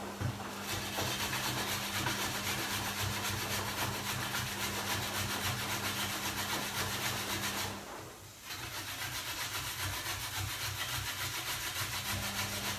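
Food being grated on a box grater: repeated rasping strokes against the metal blades, with a brief pause about eight seconds in.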